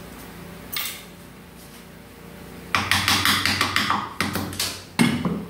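Air impact wrench rattling in rapid strikes for about two seconds on the transmission case during teardown, over the steady hum of the running tool, followed by one sharp metal knock near the end. A single click comes about a second in.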